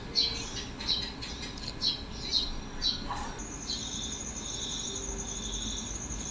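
Birds chirping in a few short, high calls, then a steady, high, pulsing insect trill that starts about three seconds in.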